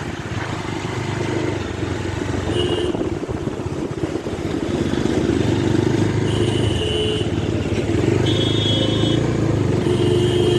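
Bajaj Dominar 250's single-cylinder engine running while the bike is ridden, with steady engine and road noise that grows somewhat louder about halfway through. A few short high-pitched tones sound over it.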